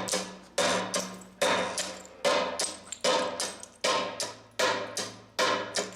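Hammer striking a steel pitching tool set half an inch in from the edge of an Indiana limestone slab, rock facing it: the edge is being broken off to give the stone a natural broken face. The strikes come about one every 0.8 seconds, seven in all, each with a short ring that dies away before the next.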